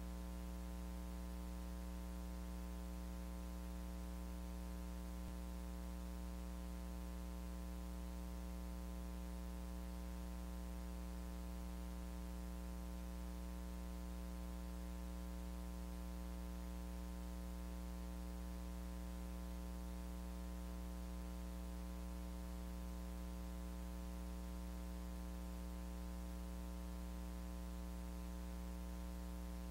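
Steady electrical mains hum with a buzzing row of overtones over a constant hiss, unchanging throughout.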